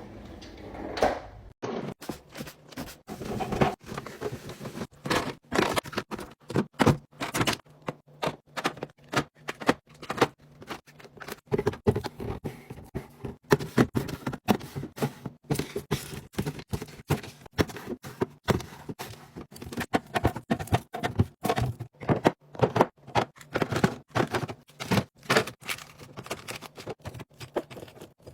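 Close-up clatter of restocking a fridge snack drawer: many short knocks, taps and rustles as snack packs, cans and plastic containers are handled and set down, several a second.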